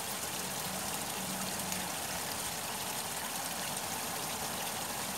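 Steady rush of rainwater running in a stream along a footpath, overflowing from a blocked drain after heavy rain.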